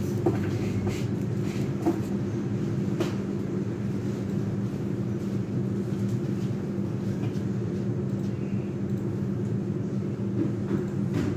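A steady low hum fills the background, with a few faint clicks and rustles from artificial stems and ribbon being handled at the vase.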